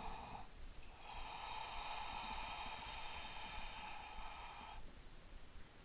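A person breathing audibly: one breath fades out about half a second in, then a long, steady breath runs from about one second in to nearly five seconds.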